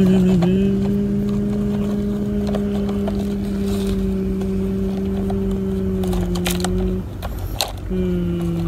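A steady, even-pitched motor hum, like a small engine running at constant speed. It breaks off for about a second near the end, with a few light knocks around the break, then resumes slightly lower in pitch.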